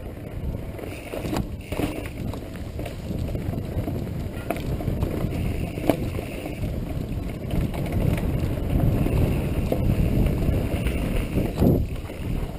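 Mountain bike riding down a dirt trail: a steady rumble of tyres on dirt and wind buffeting the microphone, with scattered knocks and rattles as the bike rolls over rough ground.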